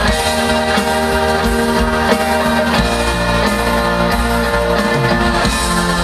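Live band music with long sustained chords.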